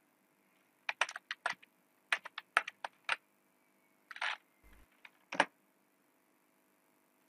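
Computer keyboard keys being typed in four short bursts of clicks, with brief pauses between them.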